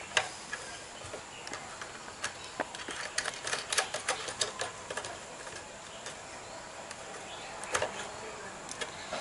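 Irregular small clicks and taps of plastic and metal as a blender's rotary switch and its wire terminals are handled and pressed against the plastic motor housing. There is a quick run of clicks in the middle.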